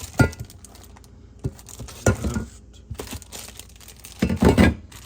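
Plastic packaging crinkling and tearing as a mud flap kit is unpacked, in four or five short bursts, with sharp knocks of the parts being handled.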